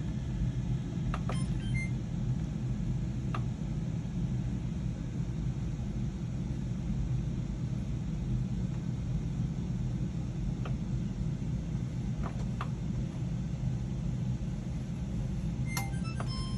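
GE top-load washer's drain pump running with a steady low hum, pumping out a full tub; a few faint ticks over it.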